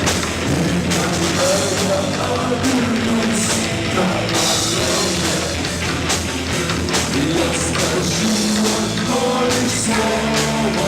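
Rock band playing an instrumental passage, with distorted guitar and a full drum kit.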